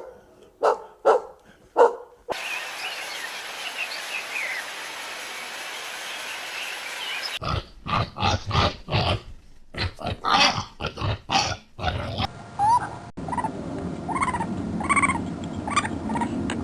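Dogs barking in a string of separate recordings. First come a few sharp single barks, then a stretch of steady background noise with faint chirps. A quick run of barks follows, and near the end there are shorter, higher-pitched calls.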